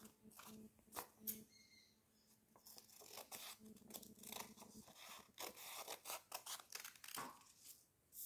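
Scissors cutting through a folded sheet of A4 paper, a run of short, faint snips in the middle of the stretch, with the paper rustling as it is handled.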